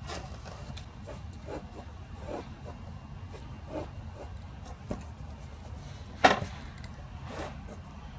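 Pencil drawing on paper: scattered short scratchy strokes, with a sharp tap about six seconds in.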